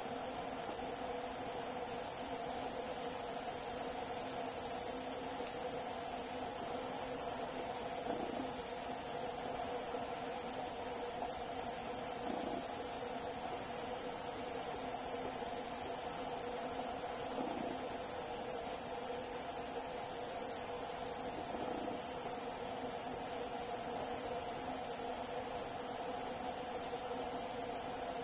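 Chorus of forest insects, a steady high-pitched shrilling that grows louder about two seconds in and holds unchanged, with a fainter steady hum lower down.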